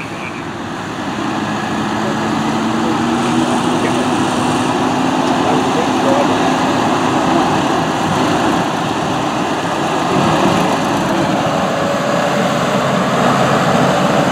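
Diesel engines of several modern tractors running as they drive slowly past, one engine note slowly rising in pitch over the first several seconds.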